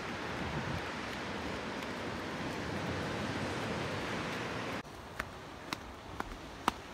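Steady rushing outdoor noise that cuts off abruptly near the end. A quieter stretch follows with a few light footsteps on the track.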